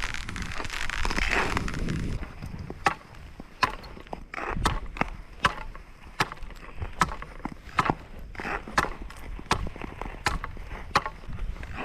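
Nordic skates on 45 mm-thick first lake ice: a couple of seconds of blade strokes swishing and scraping, then a string of sharp, irregular clicks and knocks on the ice.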